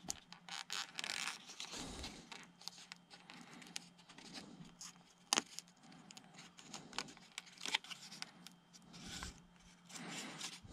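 Hands working at a foam model airplane's fuselage around the landing-gear mounting plate: irregular scraping, rubbing and crinkling handling noises, with a sharp click about five seconds in.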